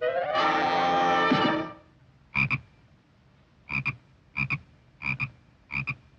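Cartoon orchestral music with brass plays briefly and ends sharply. It is followed by a cartoon sound effect of about six short, double-pulsed croaks, spaced roughly a second apart.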